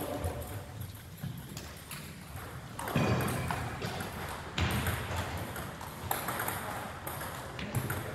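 Table tennis rally: a quick run of sharp ball clicks as the ball strikes the paddles and the table, with a couple of duller low thuds in the middle.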